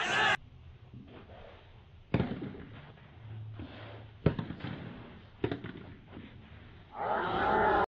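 Sharp pops of a soft tennis ball struck by rackets during a rally: three hits, the last two about a second apart. A short loud burst at the very start, and a voice shouting near the end.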